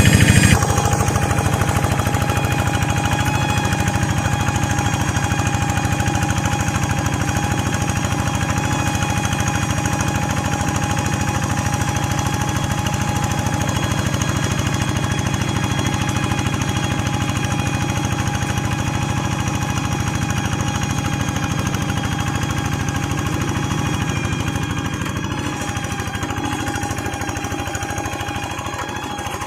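Engine of a two-wheel hand tractor working a flooded rice paddy, running steadily under load with a fast, even beat. It grows somewhat fainter over the last few seconds.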